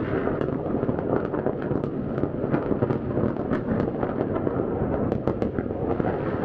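Many fireworks and firecrackers going off at once across a city: a continuous rumble of overlapping distant bangs with sharper cracks scattered all through.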